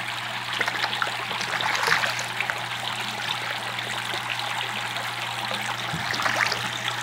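Water splashing and trickling in a fish tank as koi carp churn the surface feeding on floating pellets, with bursts of louder splashing about two seconds in and near the end. A steady low hum runs underneath.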